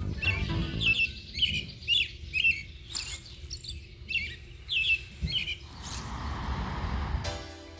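A bird calling outdoors: a run of short, quick chirps repeated about twice a second, which stops a little over five seconds in.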